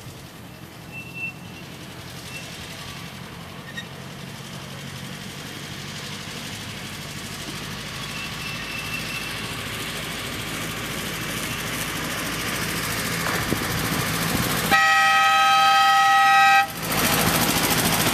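Miniature two-foot-gauge train, its locomotive a National Amusement Devices F-unit replica, running and growing steadily louder as it approaches. About fifteen seconds in, its horn sounds one blast of about two seconds, the loudest sound.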